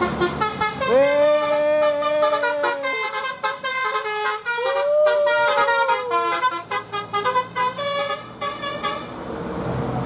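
Tour bus 'telolet basuri' musical horn playing a quick tune of flute-like notes, with swooping rises in pitch about a second in and again about five seconds in. It stops about a second before the end.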